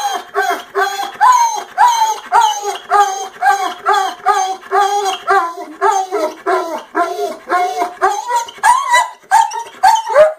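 Dog "talking": a brindle pit bull-type dog gives an unbroken run of short whining, yowling calls, each rising and falling in pitch, about two a second. It is a grumbling protest at wearing its cone, the dog really not happy.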